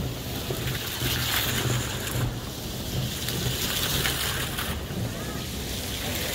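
Decorative fountain jets splashing into a shallow pool: a steady rush of falling water.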